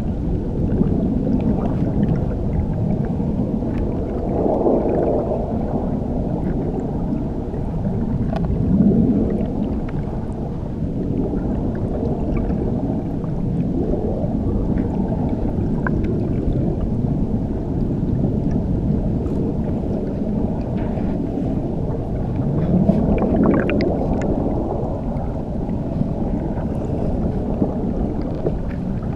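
Waterfall heard from underwater: a steady, muffled churning rumble of falling water with the highs cut off, swelling now and then, with faint small clicks and pops above it.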